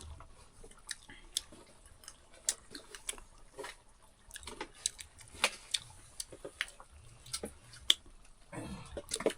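Eating sounds: chewing with irregular small clicks and taps as a meal is eaten. A brief murmur of a voice comes near the end.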